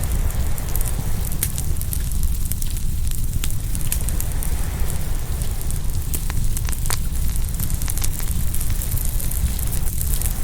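Open wood fire crackling, with many small clicks and several sharper pops scattered through, over a steady low rumble of ocean surf.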